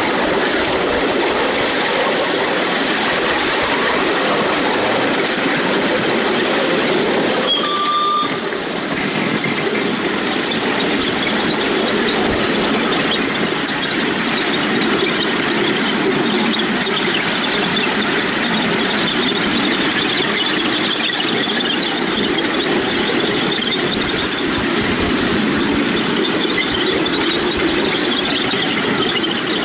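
A miniature steam railway train running along the track, heard from the carriages: a steady running noise of wheels on rail, with a brief high squeal about eight seconds in.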